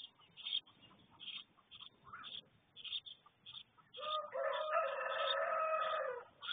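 A rooster crows once, a single long call of about two seconds starting about four seconds in. Short high chirps from small birds repeat throughout.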